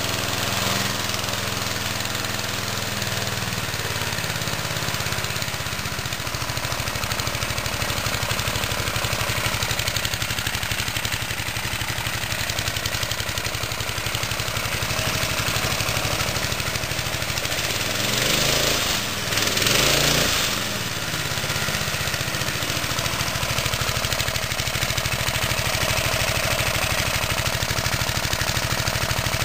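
Briggs and Stratton single-cylinder four-stroke engine on a lawn edger, running steadily just after a cold start from winter storage. About two-thirds of the way in it briefly changes speed and gets louder.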